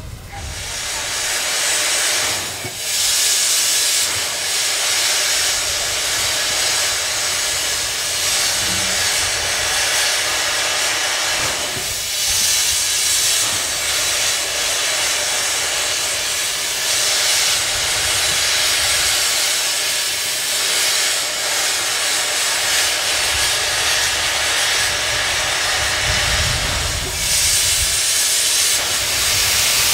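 JNR Class C56 steam locomotive venting steam from its open cylinder drain cocks: a loud, steady hiss that dips briefly three times. A low rumble comes in near the end.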